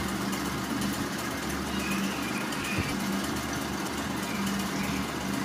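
A small motor humming steadily at a low pitch.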